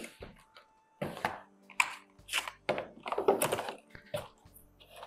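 Cardboard keyboard box and its packaging being handled: irregular scrapes, rustles and light knocks as the printed insert is pulled out.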